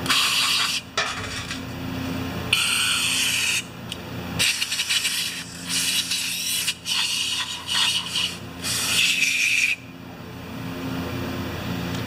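Aerosol solvent cleaner sprayed through a straw into a compressor's brass valve body to flush out varnish: hissing bursts, a few longer ones, then a run of short ones that stops about ten seconds in. A faint steady hum runs underneath.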